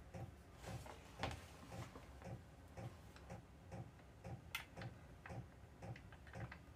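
Faint, even ticking, about three ticks a second, with a few sharper clicks among them.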